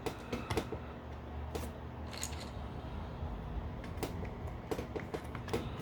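Small plastic toy parts clicking and tapping as they are handled and fitted together: black missiles being put onto the G.I. Joe BUGG's sleds, a scatter of irregular clicks over a steady low hum.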